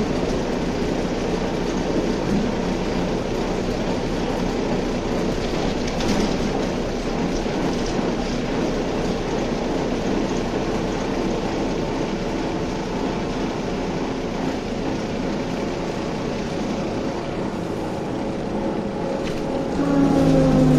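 Cabin noise of a BTZ-5201 trolleybus under way: a steady rumble of tyres and body with the traction drive running. Near the end a louder whine comes in, falling slightly in pitch.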